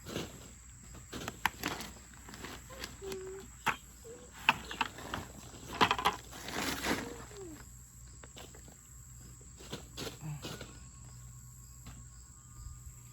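Hands rummaging through loose potting soil and potatoes, giving scattered rustles and sharp knocks that are busiest in the first seven seconds, then quieter. A steady high insect drone runs underneath, and a small child makes a couple of brief vocal sounds.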